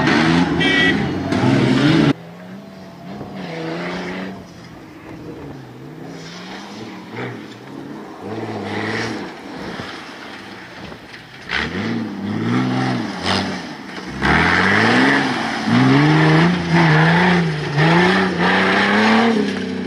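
Off-road rally Jeep's engine revving up and down repeatedly as it drives over rough grass, loudest in the last six seconds. The sound cuts off suddenly about two seconds in, then picks up again.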